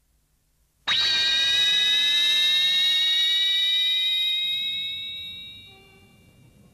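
Synthesized electronic sting for the anime's title-card eyecatch. It starts suddenly about a second in as a bright chord of several high steady tones with sweeping glides beneath, holds for about three seconds, then fades away.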